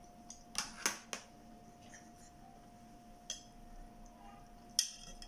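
Scattered light clicks and clinks of eating utensils against ceramic bowls: three in the first second or so, one about three seconds in and a cluster near the end. A faint steady tone runs underneath.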